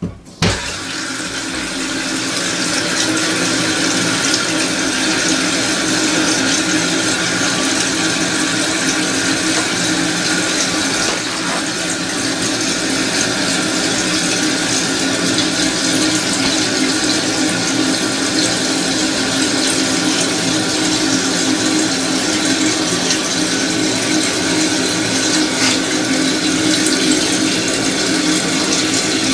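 Water rushing into a toilet tank through a newly fitted fill valve as the tank refills: a steady hiss of water that starts suddenly about half a second in.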